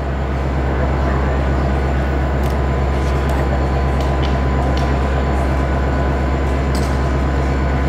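Diesel locomotive engine idling, a steady low rumble, with a few faint clicks and knocks.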